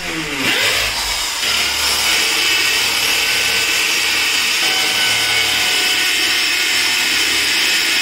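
Corded electric drill running at steady speed as it bores into a wall, a continuous high whine that starts about half a second in.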